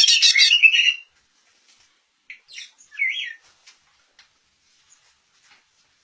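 A songbird singing: a loud, rapid, high trill that breaks off about a second in, followed by a few short chirps.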